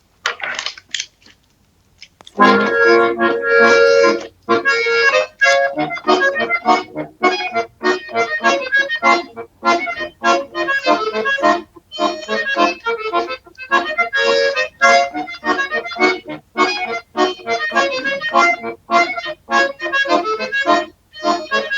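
Accordion playing a folk-style introduction, pumped chords in a steady choppy rhythm. It starts after a couple of brief notes about two and a half seconds in.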